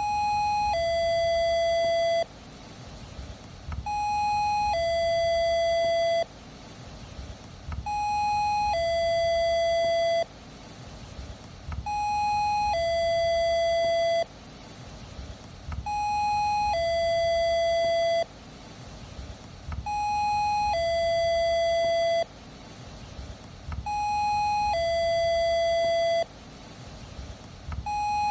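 Electronic two-tone doorbell chime, ding-dong: a short higher note followed by a longer, lower note, each cutting off abruptly. It repeats every four seconds, about seven times, over a faint low rumble.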